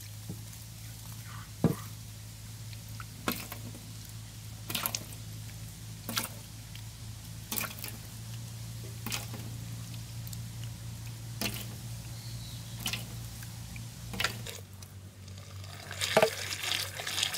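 A pestle pounding pomegranate seeds in a stone mortar, crushing them to a wet pulp: squishy strikes about every second and a half, getting busier near the end.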